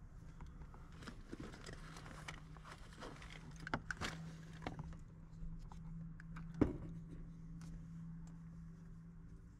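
Rustling and clicking handling noises with a few sharp knocks, the loudest about two-thirds of the way through, over a steady low hum.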